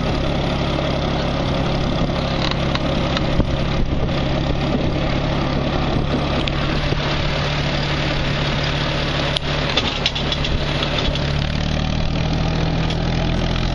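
Tractor engine running steadily as it pulls a hayride wagon, its low hum stepping up slightly in pitch near the end.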